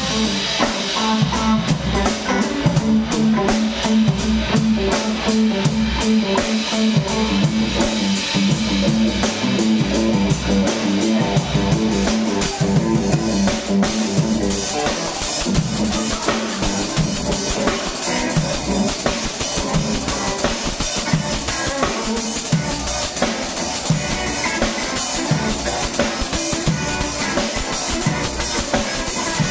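Live funk jam: a drum kit playing a busy, steady groove with bass drum and rim shots, with an electric guitar playing along.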